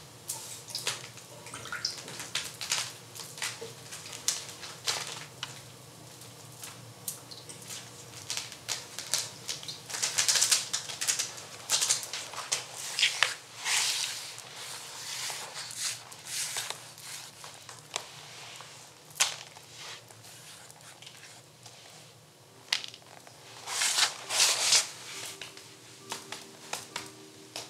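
Irregular crackling and rustling: wet paper and scattered dry leaves being handled, with many sharp clicks and crinkles. Louder spells come about ten seconds in and again near the end.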